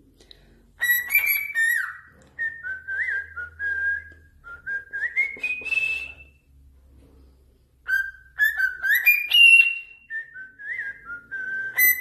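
A parrot whistling a learned tune: a phrase of clear stepping notes that rises at the end, whistled twice in a row with a short pause between.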